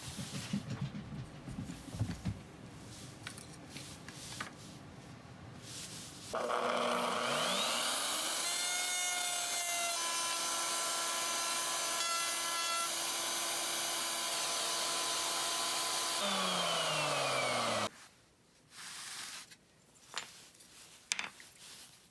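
For the first few seconds, wood is handled and rubbed. Then a woodworking power tool starts up with a rising whine, runs steadily for about ten seconds, and winds down with a falling whine as it coasts to a stop.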